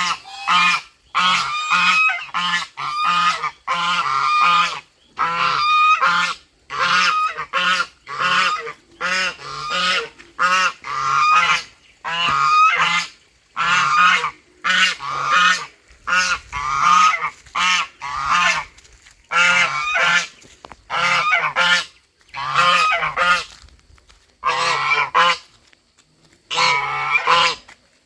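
Goose honking over and over: runs of several short honks, each run about a second long, with brief pauses between them.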